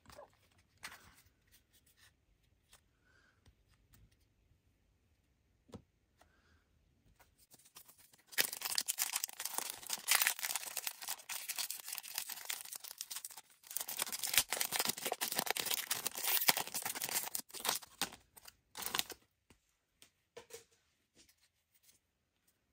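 A 2023 AFL Footy Stars foil card pack being torn open and crinkled by hand: two long spells of loud crackling tearing, the first about eight seconds in, with a few short crinkles after. Before that, only soft clicks of cards being handled.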